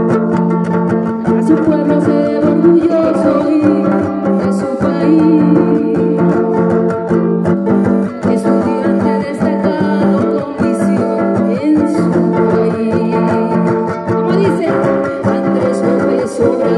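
Live guitar music: a guitar playing the accompaniment of a song, with steady chords and plucked notes throughout.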